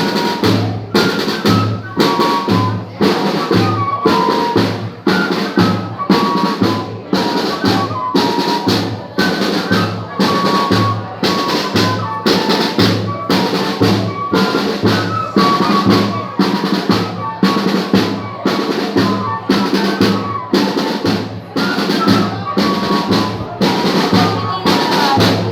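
Banda de pífanos playing: cane fifes carry a high melody over a zabumba bass drum beating a steady pulse, with sharp percussion strokes keeping the rhythm.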